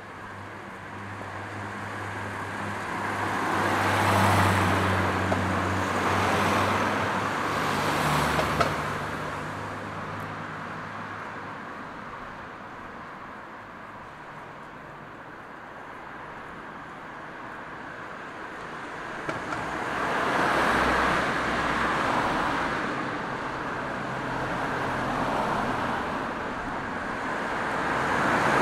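Street traffic: several cars pass one after another, each rising and fading, with a quieter lull in the middle.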